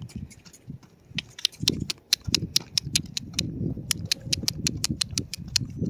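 A horse's hooves striking a gravel path as it is led at a brisk walk: a steady run of sharp clops and crunches, about five a second, growing louder about a second in, over a low rumble.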